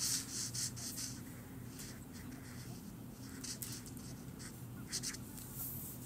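Felt-tip marker rubbing on paper in short, irregular strokes as it colours in a drawing, over a faint steady low hum.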